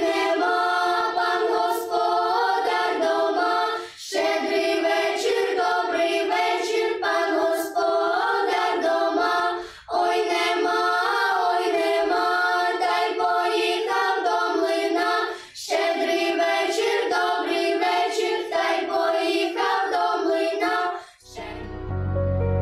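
Girls' choir singing a Ukrainian Christmas carol unaccompanied, in phrases with brief pauses between them. Near the end the singing stops and soft instrumental music begins.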